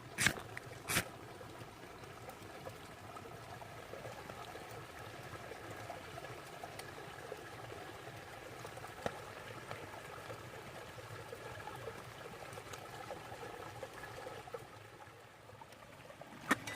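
Small babbling brook trickling and gurgling steadily, with two sharp clicks in the first second.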